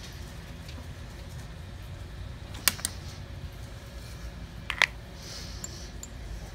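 Two pairs of sharp clicks, about two seconds apart, from the acrylic nail brush knocking against the small plastic powder jars, over a steady low hum.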